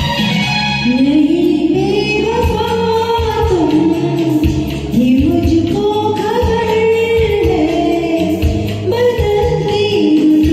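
Hindi film song sung over backing music: a voice holding long notes that slide up and down between pitches, with a regular low beat underneath.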